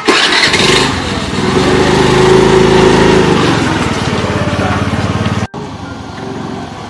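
Small motor scooter engine running under a rider, loud at first with its pitch rising a little as it pulls away. About five and a half seconds in it cuts off for an instant and comes back quieter and steady.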